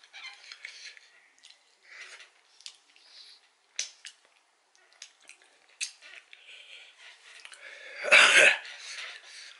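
A man's mouth noises while he eats ghost pepper peanuts: small clicks and smacks of chewing and the lips. There is one loud burst of breath about eight seconds in.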